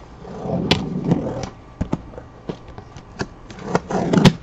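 Box cutter slicing through a cardboard case, a rough scraping cut with small clicks in two strokes, one about a second in and a louder one near the end.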